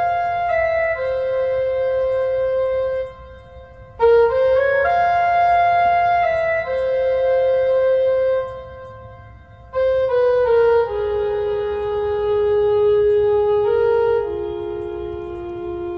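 Background music: a slow melody played on a single wind instrument, long held notes in phrases, with short pauses about three and nine seconds in.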